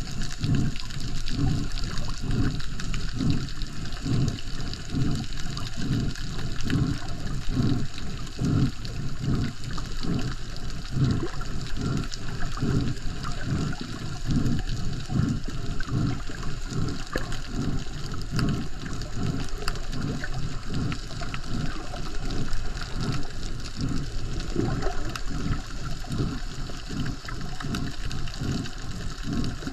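Muffled water noise on a submerged camera held by a snorkeler, with a regular low swishing pulse about twice a second over a steady hiss.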